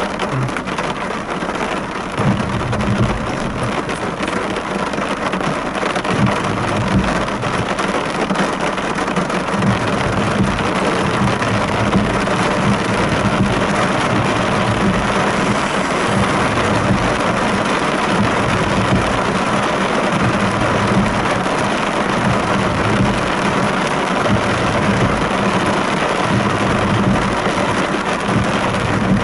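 Heavy rain on a car's roof and windows, heard from inside the car: a steady, loud hiss of drops with an uneven low hum underneath.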